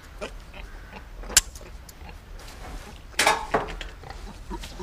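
Metal gates or hurdles being handled while setting up to load a livestock trailer: a sharp clank about a second and a half in, and a louder clattering rattle about three seconds in, among lighter knocks.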